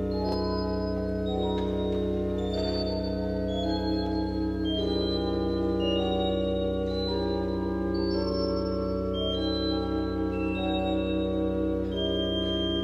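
Giroud pipe organ playing: deep bass notes held steady underneath while chords and a higher melody line change about once a second above them.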